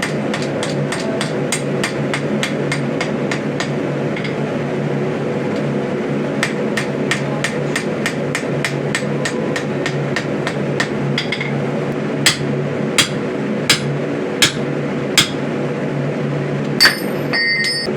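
Hammer striking hot steel on an anvil while forging the axe head, over a steady low roar. Quick blows come about three a second, pause briefly, then resume; after about twelve seconds the blows turn slower and louder, roughly one every 0.7 seconds, and ring out, with a longer ring near the end.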